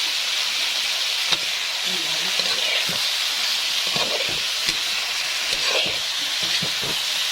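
Garlic and food sizzling steadily in hot oil in a kawali while being stirred, with a sharp click of the utensil against the pan about a second in and a few lighter knocks later.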